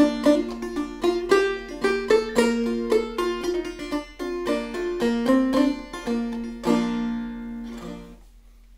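Five-string banjo tuned to open C (gCGCE), played clawhammer style in a brisk run of plucked notes. About seven seconds in the tune ends on a ringing chord and a last stroke that die away.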